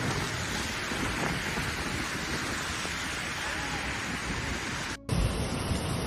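Steady rushing noise of storm wind and rain, with wind buffeting the microphone. It breaks off about five seconds in, and rushing floodwater and wind take over.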